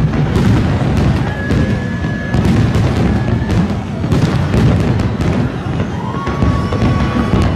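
Fireworks finale: many aerial shells bursting in quick succession, a continuous rumble of booms with sharp bangs and crackling throughout.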